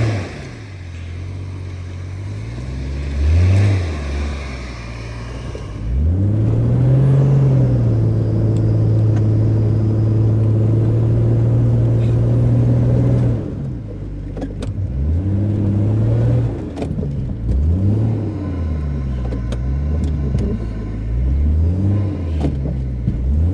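Four-wheel-drive truck's engine revving hard while stuck in deep snow. It climbs and holds high revs for about seven seconds, then drops and is blipped up and down repeatedly as the driver tries to rock the vehicle free.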